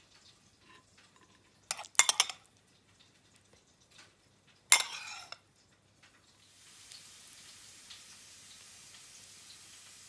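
Table knife scraping and clinking against a ceramic bowl, a plate and bread while mashed avocado is spread on slices of whole-grain bread: a quick run of scrapes about two seconds in and another about five seconds in, between soft small clicks. A faint steady hiss comes in near the end.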